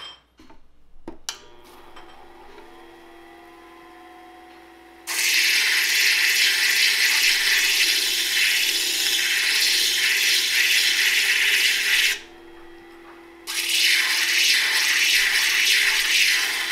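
Lapidary flat-lap grinder/polisher (Ameritool Universal Grinder & Polisher) clicking on and running with a steady motor hum. From about five seconds a turquoise stone is pressed onto the spinning wet abrasive disc, making a loud gritty grinding hiss. The grinding stops for about a second past the middle, then starts again.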